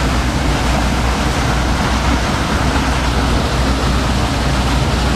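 Steady, loud rushing of water from a pump-station discharge spout falling onto the lake, with a low rumble under it and wind buffeting the microphone.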